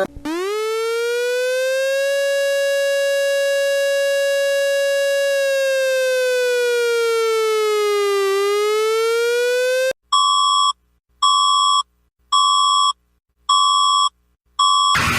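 Emergency alert (EAS) alarm tones: a buzzy electronic siren wail rises in pitch, holds, dips and climbs again. After about ten seconds it gives way to five short electronic beeps about a second apart.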